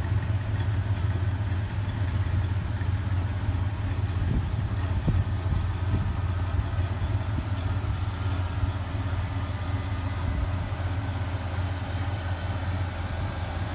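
1965 Pontiac GTO's rebuilt 389 V8, with a Holley 650 double-pumper carburettor, idling steadily.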